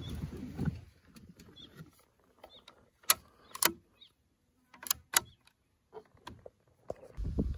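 Metallic clicks of a Czech-made bolt-action rifle's bolt being worked to chamber a round: two pairs of sharp clicks about three and five seconds in, after a moment of rumbling handling noise, with a low rustle near the end.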